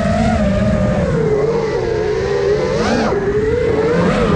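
Brushless motors and propellers of an iFlight Nazgul Evoque F5 FPV quadcopter whining, the pitch wavering with throttle and sweeping up sharply about three seconds in, heard from the onboard camera with wind rumbling on its microphone.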